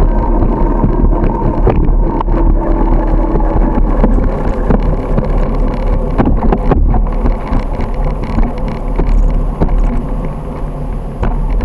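Bicycle ride: a steady rumble of wind on the microphone mixed with road rattle, with scattered knocks throughout.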